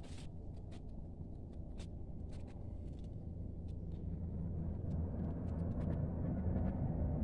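Low outdoor rumble growing steadily louder, with faint scattered clicks over it.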